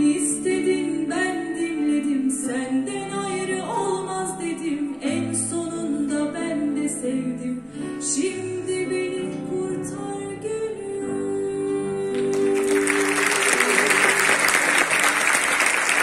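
A woman singing over acoustic guitar accompaniment. About three quarters of the way through the music gives way to an audience applauding.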